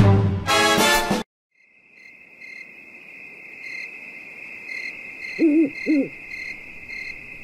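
Music stops about a second in. After a brief silence comes a night ambience: a steady high cricket chirring, and an owl hooting twice, about two-thirds of the way through.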